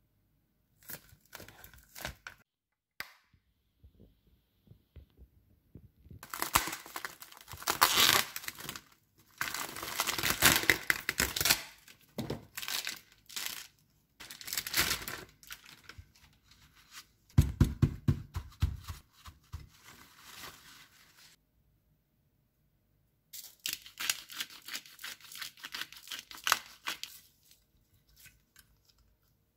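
Plastic cling film on a meat tray being torn and crinkled in several bursts as a tomahawk steak is unwrapped, with one dull thump partway through.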